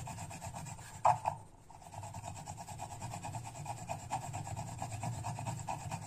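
A whole nutmeg rubbed in quick circular strokes on a rough, wet grinding plate: a steady, even scraping as it is ground into paste. One brief louder knock about a second in.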